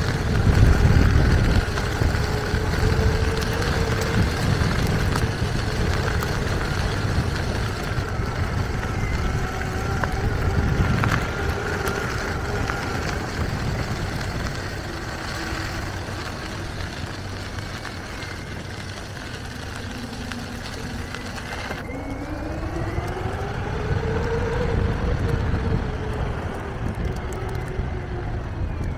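Electric mountainboard rolling along a paved path: its pneumatic tyres rumble on the surface under a faint electric motor whine. Near the end the whine rises in pitch as the board speeds up, then falls again.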